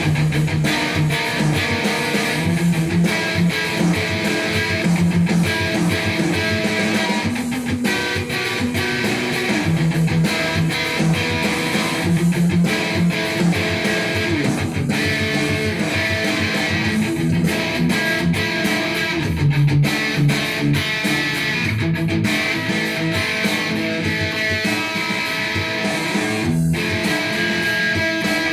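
Ibanez electric guitar played solo in continuous improvised riffing, notes and chords running on without pause, with a brief break about two seconds before the end.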